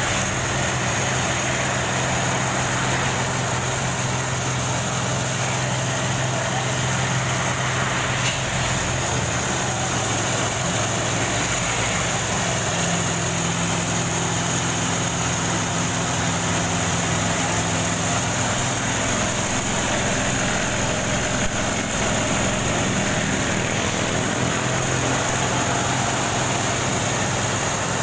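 Small engine of a sugarcane juice press running steadily while cane stalks are fed through its rollers, a constant even hum.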